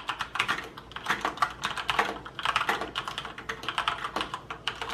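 Fast, hard typing on a Cougar Attack X3 mechanical keyboard with Cherry MX Red switches: a dense run of keystroke clacks with no switch click, not especially loud for a mechanical keyboard.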